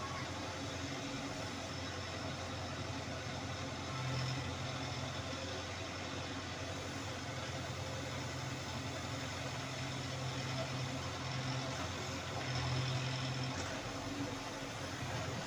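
Diesel engine of a CASE backhoe loader running while it digs. It gets louder for a few seconds about four seconds in and again near the end.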